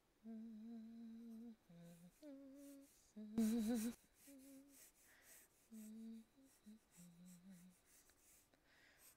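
A woman humming a tune to herself in short held notes that step up and down in pitch, over the faint scratching of a pencil drawing on paper. About three and a half seconds in, a louder rush of scratching noise lasts about half a second and is the loudest thing heard.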